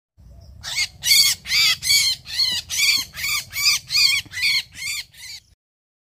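A myna giving a rapid run of harsh, squawking calls, about two a second, a dozen in all, that stop abruptly near the end. The bird is being handled and set in place in a ground trap, and the calls are typical of a handled bird's alarm.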